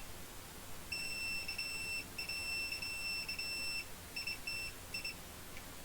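Soldering station beeping as its temperature is set: two long, high beeps, then four short beeps in quick succession near the end.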